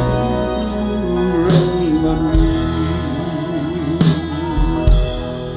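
Man singing a slow gospel song into a microphone, his voice wavering with vibrato, over live band accompaniment with a few sharp drum beats.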